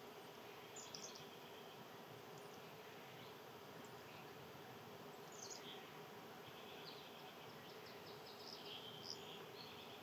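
Faint outdoor ambience: small birds giving a few short, high chirps, about a second in, in the middle, and several near the end, over a steady faint buzz.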